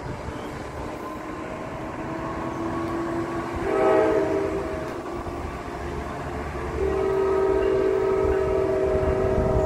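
Train horn sounding a chord of several notes at once: a short loud blast about four seconds in, then a long steady blast from about seven seconds in. Low rail rumble runs underneath.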